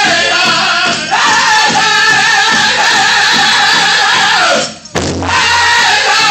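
Powwow drum group singing in high-pitched unison over a steady drum beat. The song drops out briefly just before five seconds in and comes back in with a low thump.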